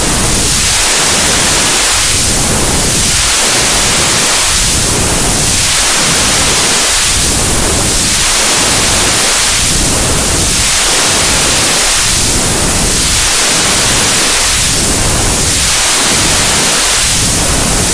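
Loud white noise, like static, with its tone sweeping up and down about every two and a half seconds.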